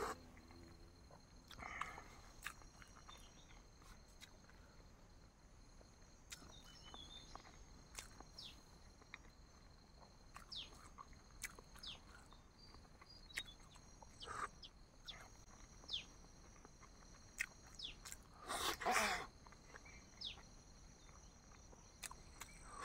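Faint close-up eating sounds of a person chewing boiled eggs: scattered mouth clicks and smacks, with a louder, longer noise about nineteen seconds in.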